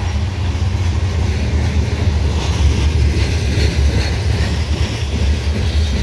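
Loaded coal hopper cars of a freight train rolling past at close range: a steady low rumble with wheel-on-rail noise, the higher clatter building about two seconds in.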